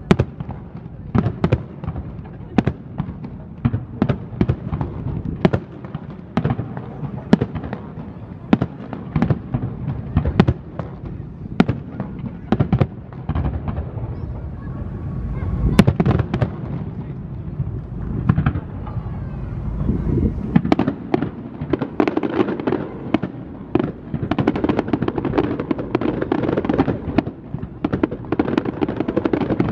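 Fireworks display: aerial shells bursting with sharp bangs about once or twice a second, one heavy low boom about halfway through, and denser crackling in the second half.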